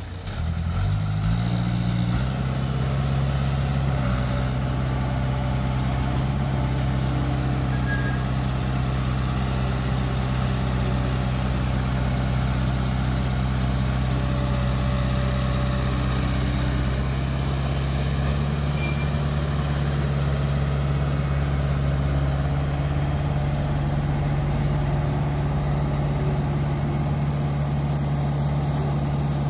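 Heavy diesel engines of a Caterpillar crawler excavator and a dump truck running together. The engine note rises over the first two seconds, then holds at a steady working pitch.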